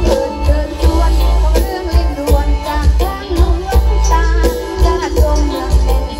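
Loud live Isan mor lam band music through big concert loudspeakers, with deep bass, a steady drum beat and a melodic lead line.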